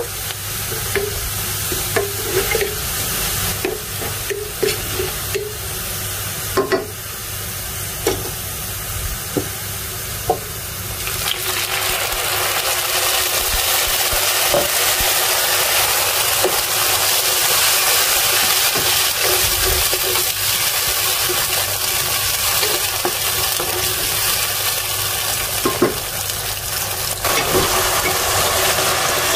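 Sliced onions and cumin seeds frying in hot oil in a pan, with the scrapes and taps of a wooden spatula stirring them. About eleven seconds in, liquid goes into the pan and the sizzle turns louder and steadier.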